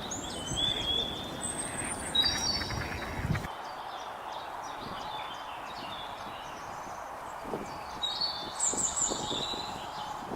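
Small birds chirping, short high whistled calls in two bouts, one near the start and one from about eight seconds in, over a steady outdoor hiss. A low rumble under the first part stops abruptly about three and a half seconds in.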